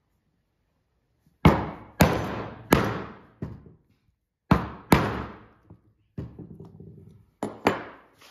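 Mallet striking a bag punch to cut a hole through belt leather: about ten sharp blows in uneven groups, each dying away over up to half a second.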